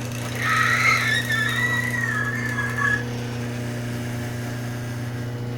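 Garage door opener motor running with a steady hum as the door closes. About half a second in, a high wavering squeal joins it for roughly two and a half seconds.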